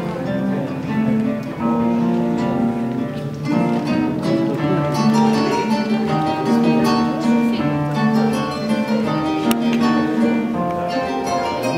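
Live plucked-string music: a nylon-string classical guitar and a lute-like plucked instrument playing a piece together, a run of plucked notes that ring on.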